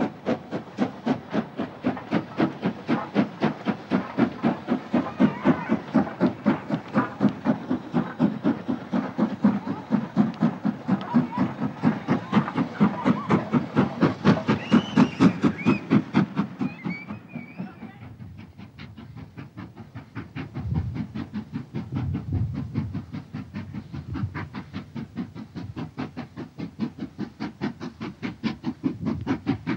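LMS Stanier Black Five 4-6-0 steam locomotive No. 5407 working a passenger train, its exhaust chuffing in a rapid, even beat. About two-thirds of the way through the beat drops quieter for a few seconds, then comes back.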